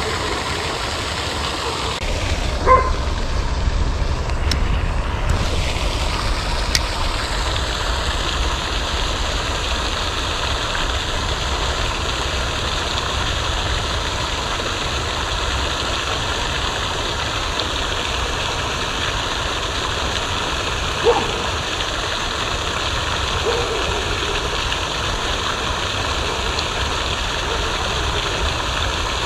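Steady rushing of water from a pond's fountain aerator spray, a constant even noise, with a heavier low rumble in the first few seconds and one brief louder sound about 21 seconds in.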